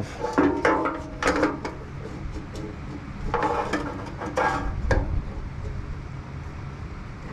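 Light clicks, taps and scrapes of a fuel level sender's metal mounting plate and float arm being worked into the opening of a motorcycle fuel tank. The knocks come in a cluster in the first second and a half and again about three to five seconds in, over a low steady hum.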